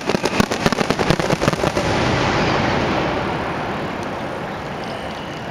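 Fireworks crackling: a rapid string of sharp cracks for about the first two seconds, which then blurs into a steady hiss that slowly fades away.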